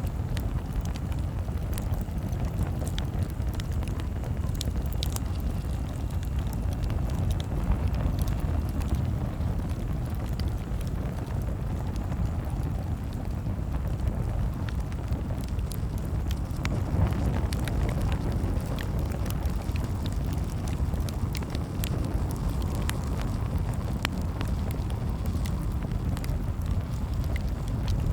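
Campfire crackling: scattered sharp snaps and pops over a steady low rumble.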